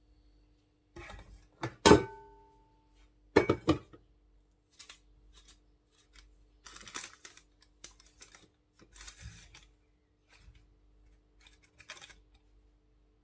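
A metal baking tray knocks with a short metallic ring about two seconds in, then clatters again a second and a half later. After that come soft, scattered scrapes and rustles as a spatula spreads cake batter over parchment paper.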